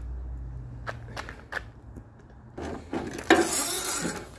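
Metal hand tools and sockets handled and clinking: a few light clicks about a second in, then a longer rattle and scrape of metal with a sharp knock in the middle, as a driver and bolt are fitted to an RV awning torsion spring.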